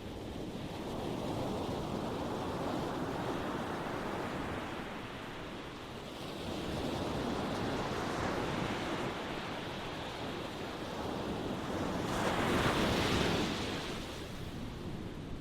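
Ocean waves breaking and washing in, in slow swells that rise and fall, the loudest wave breaking about twelve seconds in.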